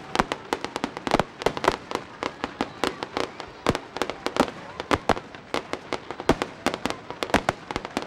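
Fireworks display: a rapid, irregular barrage of sharp bangs and cracks, several a second, without letup.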